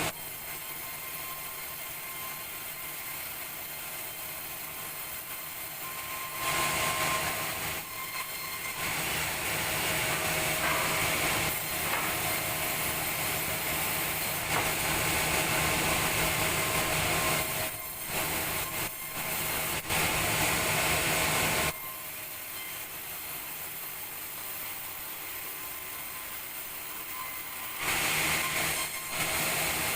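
Sawmill saw running with a steady machine hum, growing louder and noisier from about six seconds in until about twenty-two seconds, and again near the end, as it cuts through timber.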